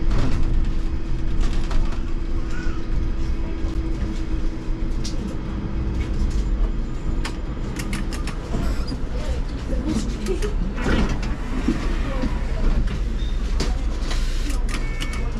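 Cab interior of an IMC Hess Lightram 19 DC trolleybus under way: a steady low rumble of the running vehicle, with frequent small rattles and knocks. A steady hum runs under it and fades out about five seconds in.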